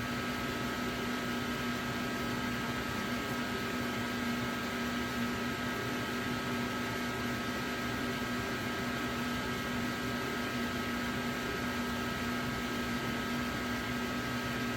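Steady machine hum: an even fan-like rush with a constant low hum and a thin, steady high whine, unchanging throughout.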